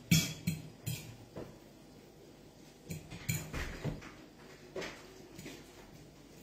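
A fork clinking and scraping against a plate as noodles are stirred and lifted: a scatter of short, irregular taps, several close together about three to four seconds in.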